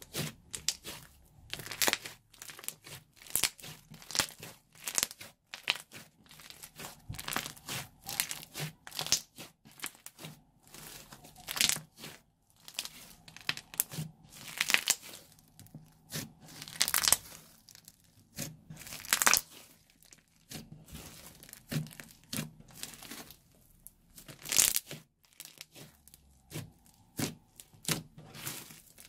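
Thick pink slime mixed with decorative sand being squeezed, stretched and poked by hand, giving dense, irregular sticky crackles in uneven clusters, about one or two a second.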